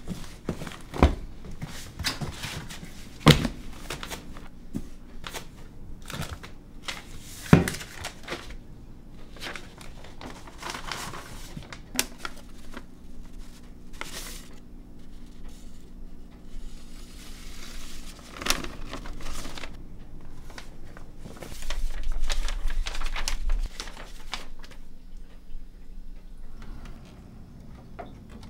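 Paper rustling and crinkling as mail is handled and a letter unfolded, with several sharp knocks and clicks, the loudest within the first eight seconds. A low rumble rises for about two seconds roughly three-quarters of the way through.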